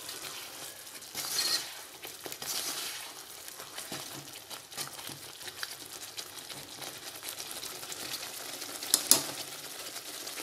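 A spoon stirring kofta balls through thick masala gravy cooking in a metal kadhai: the gravy sizzles with a steady hiss while the spoon scrapes and clicks against the pan, with a sharp double click about nine seconds in.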